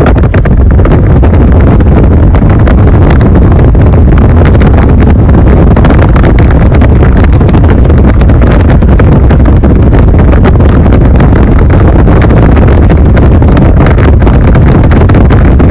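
A car driving at highway speed, heard from inside the cabin: a loud, steady low rumble of road and wind noise, with wind buffeting the microphone.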